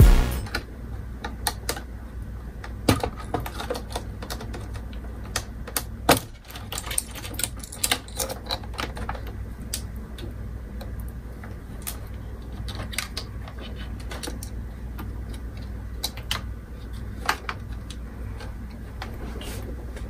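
Irregular light clicks and taps of hands and small tools on metal and plastic parts as a Mid 2007 iMac's logic board is worked loose and lifted out, over a low steady hum.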